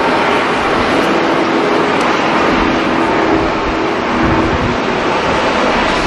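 Japan Airlines Airbus A350's Rolls-Royce Trent XWB jet engines at high power during the takeoff roll, a steady loud roar, with wind buffeting the microphone underneath.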